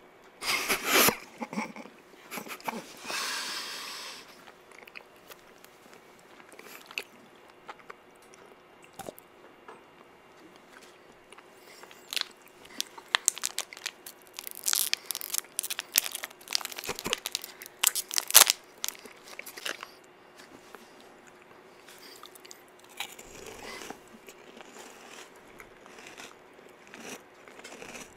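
Close-miked crinkling of a candy wrapper and crunching bites of candy, in scattered sharp crackles that come thickest from about twelve to twenty seconds in, with a short airy hiss near the start.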